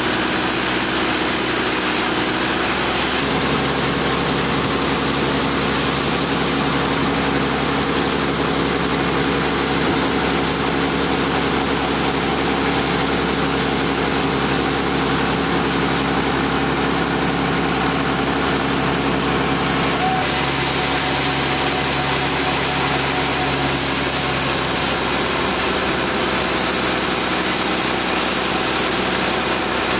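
An engine running steadily under a constant drone, its tone shifting slightly a few seconds in and again about two-thirds of the way through.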